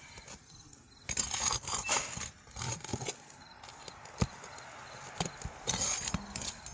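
Irregular scraping and rasping of a hand tool worked against asphalt roof shingles, broken by a few sharp knocks, the sharpest about four seconds in.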